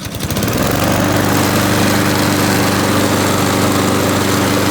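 Honda GCV160 lawnmower engine, a single-cylinder four-stroke, starting on the pull and settling into a steady run at constant speed.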